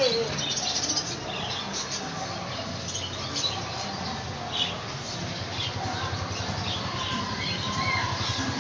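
Many caged pet birds, budgerigars among them, chirping and squawking all at once in scattered short calls.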